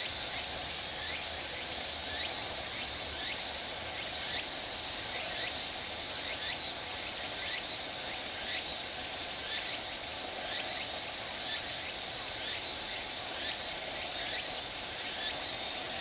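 Insects chirring in grassy vegetation: a steady high hiss with a steady high tone, and over it a short falling note repeating about twice a second.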